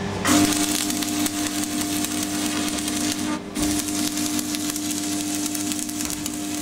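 Electric arc welding: the arc crackles and sizzles steadily over a steady hum, held as one long weld. It cuts out briefly about three and a half seconds in, then the arc is struck again and carries on.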